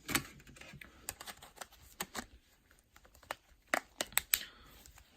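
Scattered sharp plastic clicks and taps from a smartphone being handled, about a dozen, loudest near four seconds in.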